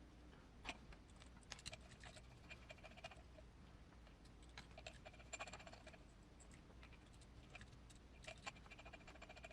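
Faint clicking and light ticking of small metal parts and a hand tool as an RC crawler's portal axle is taken apart to remove the axle shafts, in short clusters of quick ticks.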